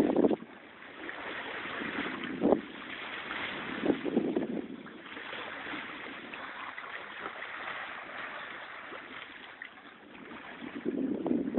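Steady wash of sea water and wind noise, with a couple of brief louder splashes.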